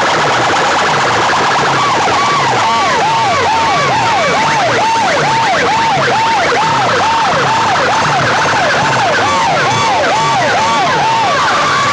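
Siren-style electronic warble blasted through a stack of horn loudspeakers. Quick rising sweeps come first, then a loud swooping tone repeats about two and a half times a second until near the end.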